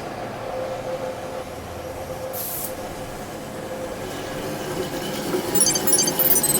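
Factory machinery running with a steady hum, a short sharp hiss about two and a half seconds in, and rapid clicking near the end.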